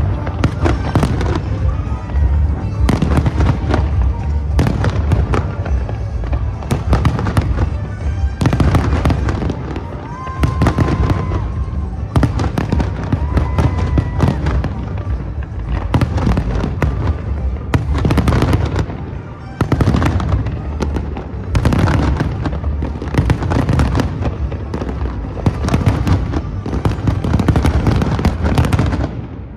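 Fireworks display going off in dense volleys of bangs and crackles, with a few brief lulls, over music playing along with the show.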